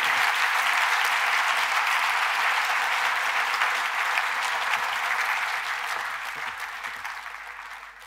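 Audience applauding, a dense steady clapping that dies away over the last couple of seconds.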